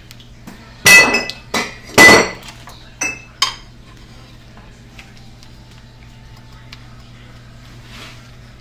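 Kitchen utensils and dishes clattering: two loud ringing clanks about a second and two seconds in, then two lighter knocks, then only faint small clicks.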